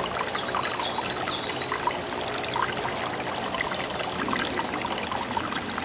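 A small creek running, a steady rush and trickle of water. A bird calls a quick run of high chirps from about half a second in, and once more briefly after about three seconds.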